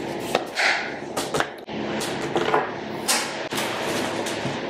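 Handling noise from packing a bag: a folder and papers rustling and swishing, with several sharp knocks and clacks as things are put in.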